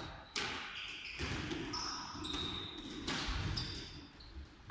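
Small balls hitting and bouncing on a sports-hall floor, three sharp hits that echo through the large hall, with short high squeaks between them.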